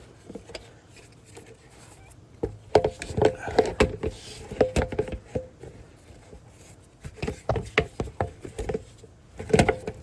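Handling and fitting a loose part back into place: two runs of sharp clicks and knocks, a few ringing briefly, about two seconds in and again near the end.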